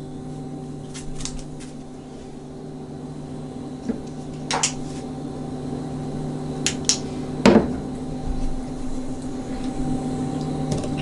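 Blower fan of a gas furnace running on a low setting, a steady hum. A few light clicks and knocks from handling are mixed in, the loudest about seven and a half seconds in.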